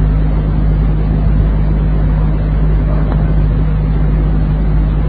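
Steady low hum with hiss, unchanging throughout: the background noise of an old, low-fidelity recitation recording, heard with no voice over it.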